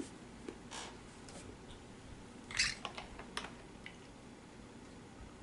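Faint handling sounds as a drink bottle is picked up and handled: a few scattered clicks and rustles, the loudest a short rustling hiss about two and a half seconds in.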